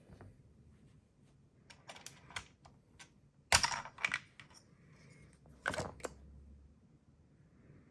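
Plastic keycaps on a KC64 60% mechanical keyboard clicking and clacking in irregular presses while new keycaps are fitted and tried. The loudest clacks come about halfway through and again about two seconds later.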